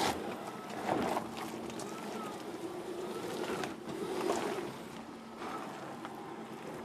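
Mercedes GLC SUV's tyres crawling slowly over rock and loose dirt: a steady crunching rush of grit under the tread with scattered sharp clicks and knocks of stones, the loudest about a second in and near four seconds.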